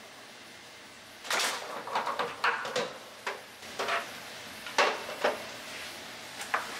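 Hand tools and plumbing fittings being picked up, handled and set down on a water heater's metal top: a run of clicks, clacks and knocks for several seconds after a quiet start, with one more click near the end.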